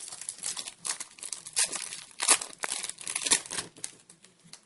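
Foil trading-card pack wrapper crinkling and tearing as it is opened, in a run of crackling bursts that are loudest about two and three seconds in.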